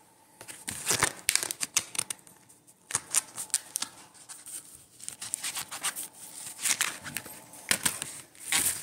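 Quick, irregular scratches and taps of a marker colouring on paper close to the microphone, pausing briefly around two to three seconds in.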